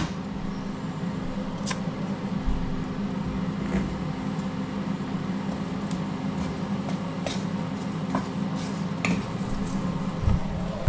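Induction hob humming steadily as it heats a non-stick frying pan, with a few light clicks of a utensil touching the pan as butter goes in.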